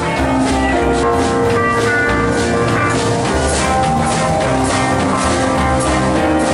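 A live rock band playing over a PA system: electric guitars and a drum kit with a steady beat.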